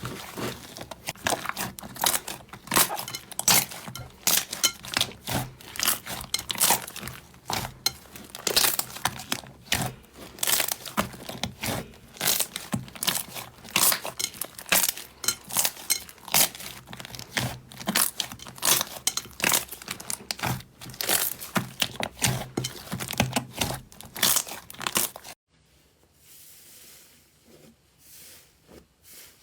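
Slime being squeezed and worked by hand, a dense run of crackling and popping clicks. It cuts off suddenly near the end to a much quieter stretch.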